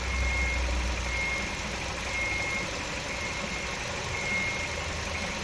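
2009 Hyundai Getz engine idling steadily, with a faint high tone coming and going about once a second. The engine has an intermittent cylinder 1 misfire, caused by ignition leads leaking spark to earth.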